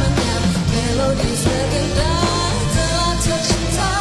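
A woman singing a gliding pop ballad melody into a microphone over a band accompaniment with steady bass and cymbals.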